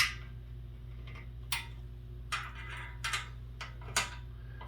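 Sharp metallic clicks at uneven intervals, about six of them, as an Allen wrench turns and knocks against the bolts and metal frame of a desk being assembled, over a steady low hum.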